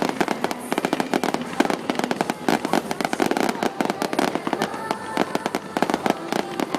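Aerial fireworks going off in a dense, rapid barrage of sharp bangs and crackling pops, many per second without a break.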